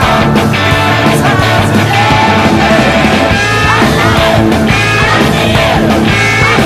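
Electric guitar, a locally made Telecaster replica, played along with a rock backing track, with notes that glide in pitch in the middle.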